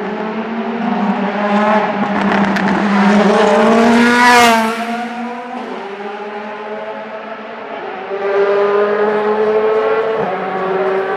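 DTM race cars' V8 engines running at low revs as the cars pass one after another. The loudest passes close about four seconds in, its pitch dropping as it goes by, and another swells up about eight seconds in.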